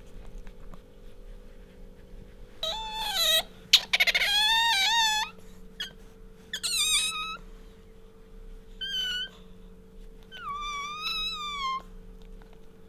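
Asian small-clawed otter squeaking: five high-pitched, wavering calls in a row, the second one the loudest and longest.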